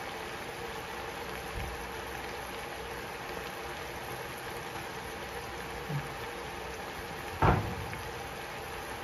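Diced pork simmering in a little water in a nonstick wok, a steady bubbling hiss. A sharp knock sounds about seven and a half seconds in, with fainter knocks earlier.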